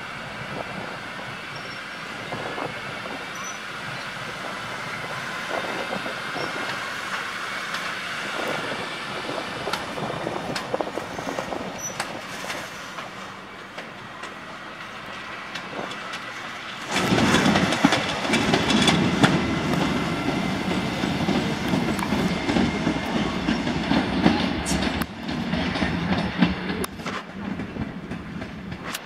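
Two coupled electric locomotives, a Siemens Vectron and an ET21, running light through the station. A steady rail rumble grows much louder about 17 seconds in, with wheels clattering over rail joints and points.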